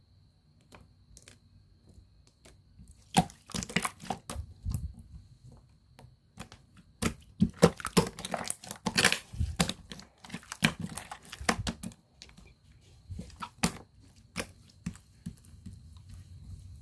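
Slime being handled, pressed and pulled, giving sticky clicks and crackles. They start about three seconds in, come thick for several seconds, then thin out near the end.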